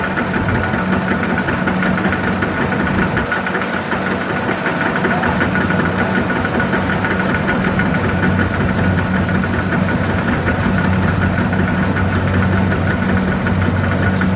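Kubota DC-70 Plus combine harvester's diesel engine running steadily under load. A continuous low drone carries a steady high whine over it.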